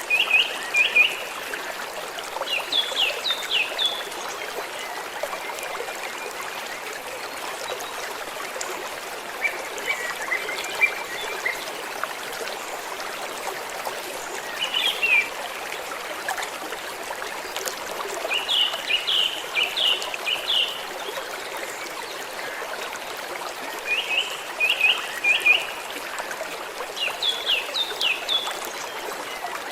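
A small stream trickling and running steadily. A songbird repeatedly sings short phrases of quick, high chirping notes, about every few seconds.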